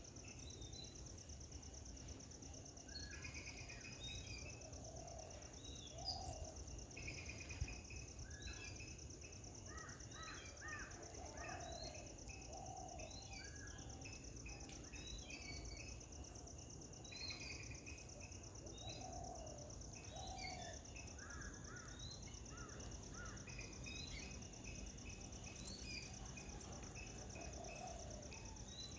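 Garden ambience: a steady high-pitched insect drone with many short bird chirps and calls scattered through it, and a couple of brief taps about six and seven and a half seconds in.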